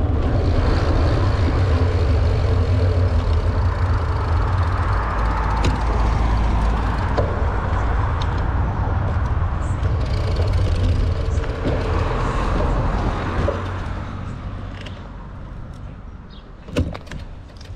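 Wind buffeting the microphone of a camera on a moving bicycle, a heavy, uneven low rumble with tyre and road noise, easing off about fourteen seconds in. A single sharp knock near the end.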